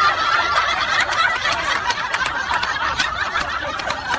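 A person laughing hard without a break, high-pitched and continuous.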